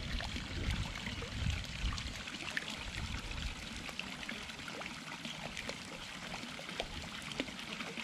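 Shallow pool water trickling and lapping, with many small splashes as a sheltie puppy wades through it, over the steady trickle from a spout pipe.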